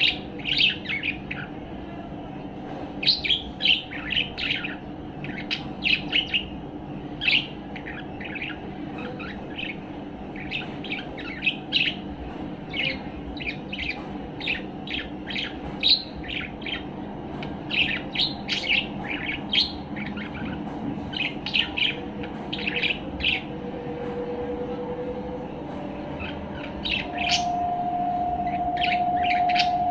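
Budgerigar giving short, cheerful chirps in quick clusters, the contented chatter of a relaxed, resting budgie. Underneath is a steady low background hum, and a steady tone comes in over the last few seconds.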